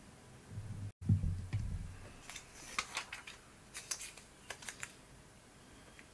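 Paper scraps being handled and tucked into a collaged paper envelope on a craft desk: a few soft low thumps, then a scattering of light clicks and rustles.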